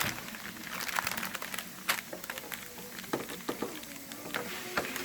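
Packaging being opened by hand: irregular clicks, cracks and crinkles of cardboard and plastic being pulled apart.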